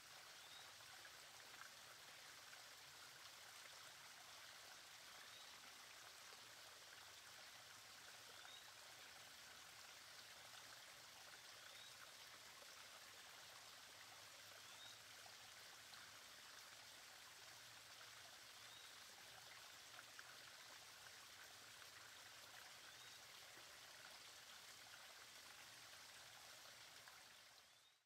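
Faint steady trickle of a small waterfall spilling over stones into a shallow rock pool, with a faint short high chirp every three to four seconds. It fades out near the end.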